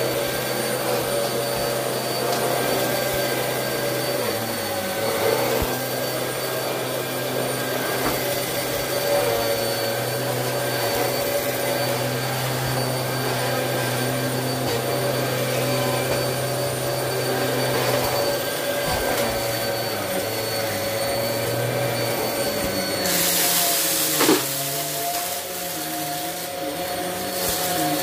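Bagless upright vacuum cleaner running with a steady motor hum as it is pushed along. About 23 s in the sound turns harsher and hissier, with one sharp knock, as the head with its spinning brushroll moves onto a rug.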